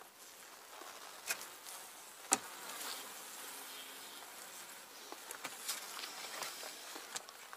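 Buzzing of a wintering Buckfast honeybee colony from the opened hive, broken by sharp clicks of a metal hive tool on the frames and plastic film. The sharpest click comes a little over two seconds in, with smaller ones later on.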